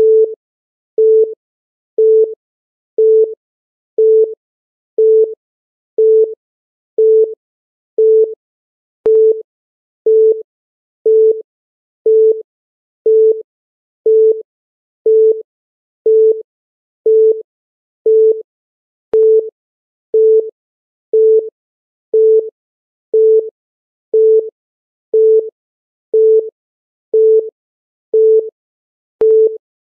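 Countdown timer beep: a short, single-pitched electronic tone sounding once every second, with silence between.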